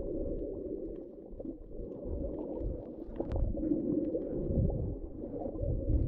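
Muffled underwater water noise during snorkeling: sloshing and gurgling with uneven low thumps, dull and with no bright sounds above.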